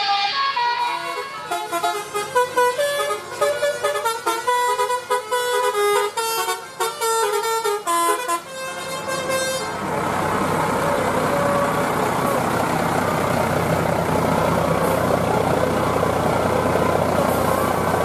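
Bus 'telolet' musical air horns playing a quick tune of short stepped notes for about ten seconds. After that comes a steady, loud wash of engine and street noise as a coach moves past.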